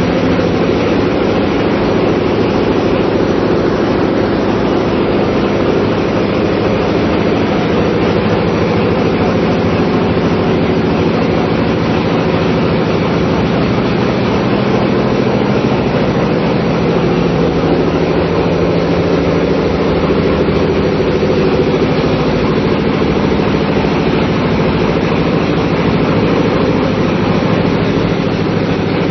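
A multi-cylinder marine diesel engine running steadily in a ship's engine room: a loud, constant drone whose speed does not change.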